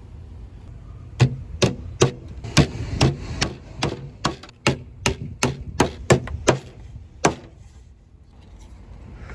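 Hammer blows on wood: about fifteen quick strikes in a row at two to three a second, stopping about two seconds before the end.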